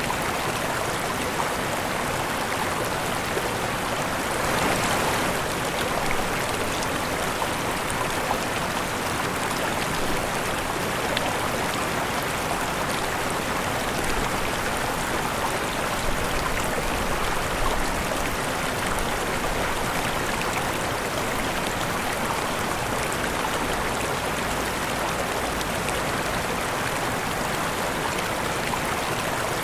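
Waterfall: a steady rush of falling and splashing water, swelling slightly now and then.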